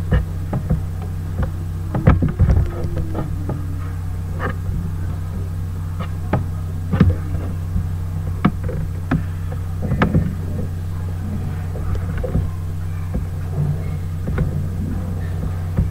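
Steady low hum with scattered short clicks and knocks at irregular intervals.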